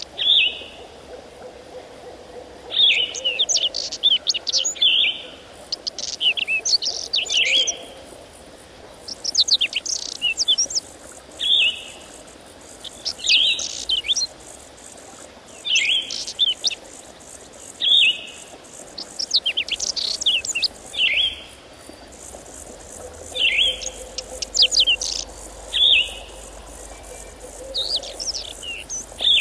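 A songbird singing short, high phrases of quick sweeping notes, repeated every two to three seconds.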